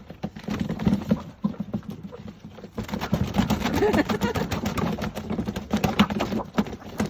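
Sex-Link chickens scrabbling and flapping inside a carrier as it is tipped to empty them out, refusing to come out: a dense, irregular run of knocks and scrapes of claws and wings against the box.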